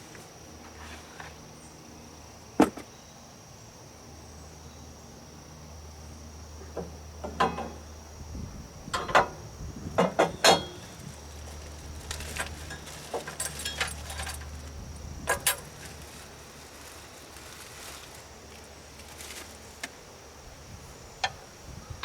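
Scattered sharp metallic clinks and clicks of hand tools and bolts on a Bobcat 763 skid steer's exhaust as the muffler is bolted back on. They are loudest in a cluster near the middle, over a steady high-pitched tone and a low hum.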